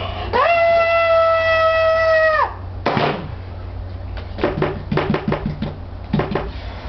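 A loud, high-pitched note held for about two seconds, sliding up at the start and dropping off at the end. It is followed by scattered knocks and shuffling.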